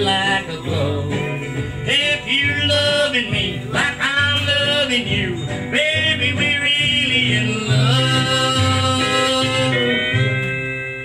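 Background music: a country-style song with a singing voice over plucked guitar, beginning to fade out near the end.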